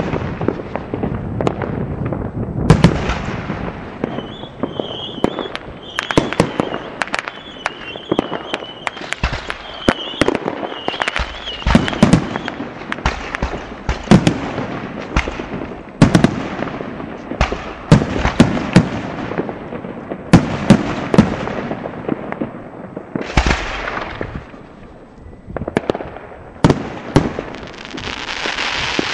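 Fireworks display: a rapid, irregular series of loud bangs from exploding aerial shells. A wavering high whistle runs for several seconds starting about four seconds in, and a steady hiss builds near the end.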